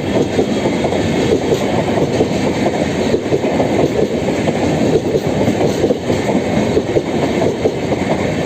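Express train coaches running past at speed through a station without stopping: a loud, steady rumble and rattle of wheels on the track, with the clatter of rail joints.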